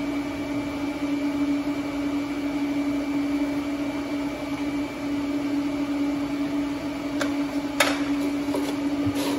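Steady machine hum with a faint high whine, and two sharp clicks about seven and eight seconds in.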